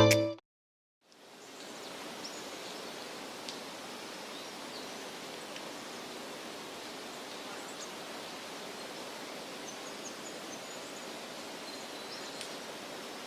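Intro music cuts off at the start; after about a second of silence comes a steady outdoor background hiss with a few faint, high chirps now and then.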